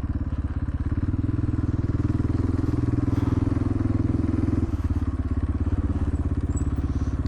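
KTM 500 EXC's single-cylinder four-stroke engine running with an even, rapid pulse, easing off about two-thirds of the way through.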